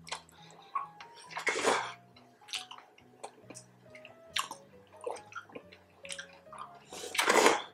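Close-miked eating of juicy red dragon fruit and crispy pork: a run of short wet bites and slurps, with a longer, louder slurp about seven seconds in. Quiet background music plays underneath.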